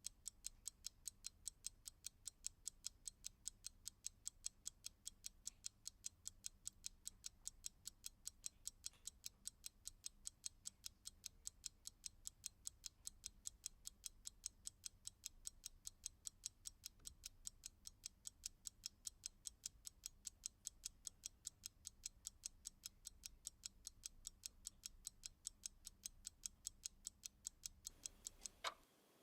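Clock ticking fast and evenly, about three sharp ticks a second; the ticking stops shortly before the end.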